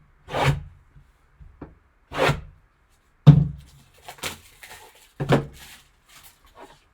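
A sealed trading-card box being handled and opened by hand: about six separate thunks and scraping rustles with short pauses between them.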